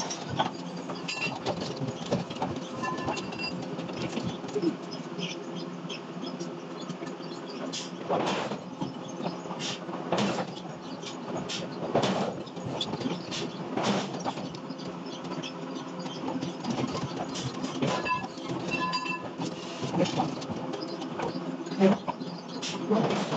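Hydraulic forging press at work on a hot steel ring: a steady machine hum with irregular metal clanks and knocks throughout.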